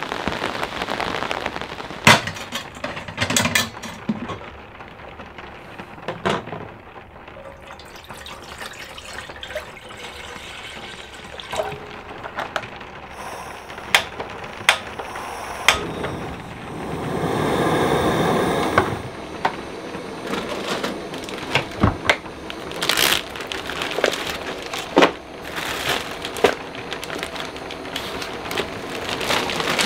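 Cooking preparation at a small gas stove: scattered clicks, knocks and handling noises from the stove control, pot and a plastic bag, with a rushing swell lasting about two seconds just past the middle.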